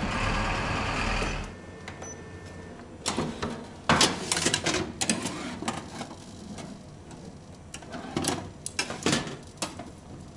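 A steady noisy rumble cuts off about a second and a half in. Then comes the clatter of a countertop air fryer oven's door and wire fry basket being opened and pulled out, and metal tongs clinking and scraping against the wire basket as food is turned, in irregular sharp clicks.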